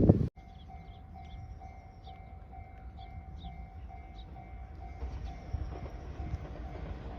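Japanese level-crossing warning bell ringing steadily at about two strokes a second, while an approaching train's low rumble grows over the last couple of seconds. A louder sound cuts off abruptly in the first moment.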